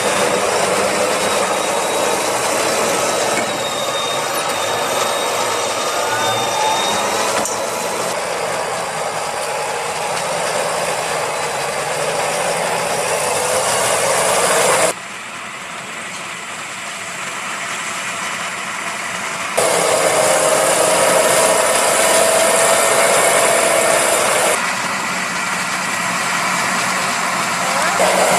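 Fendt Vario 826 tractor engine running steadily under load while pulling a reversible plough, heard across several cut-together shots whose level and tone change abruptly. There is one noticeably quieter stretch about halfway through.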